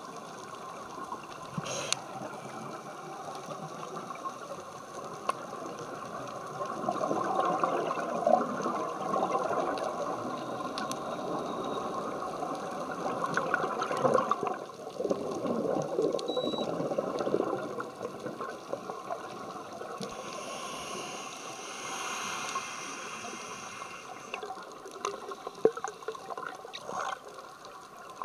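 Scuba regulator breathing, recorded underwater: long gurgling rushes of exhaled bubbles several seconds each, with a steady water hiss between them.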